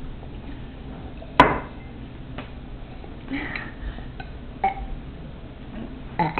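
One sharp knock about a second and a half in, the loudest sound, then a few lighter taps and clinks.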